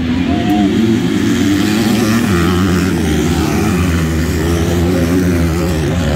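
Several motocross dirt bikes racing together, their engines revving hard, with overlapping pitches that rise and fall as the riders open and close the throttle.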